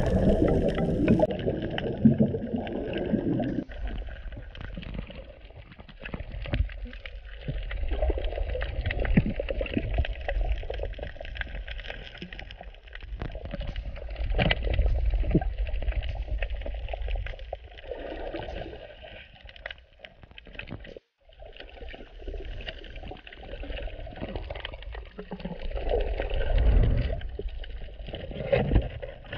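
Muffled underwater sound from a camera under the sea: water moving and gurgling, with uneven low rumbles that swell and fade and many scattered small clicks. The sound drops out briefly about two-thirds of the way through.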